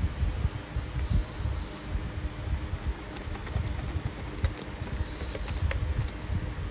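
Keys being typed on a Keychron K12 mechanical keyboard: a run of quick, sharp key clicks that grows thickest in the second half, over a low rumble.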